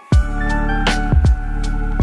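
Background music starting abruptly, with deep kick-drum hits, a sharp snare-like hit and held synth chords.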